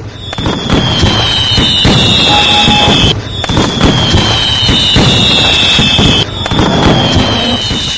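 Ground fountain firework (anar) spraying sparks: a loud, steady hiss full of crackling, with a faint high whistle that falls slightly in pitch. It breaks off briefly twice, about three and six seconds in.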